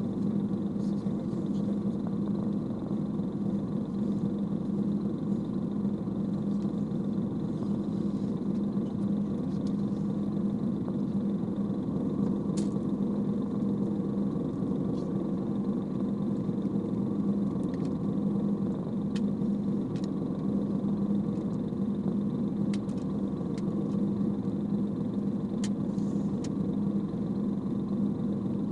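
A boat's engine running steadily, heard on board as a constant hum, with a few faint ticks over it.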